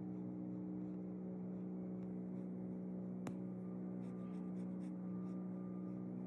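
Paintbrush working thick paint on canvas, soft scratchy brushing with a sharp tap about three seconds in and a few light dabs a second later, over a steady low electrical hum.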